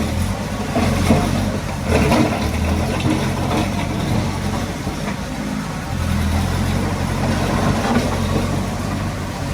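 Heavy-equipment diesel engine running under changing load, its low note swelling about two seconds in and again around six seconds.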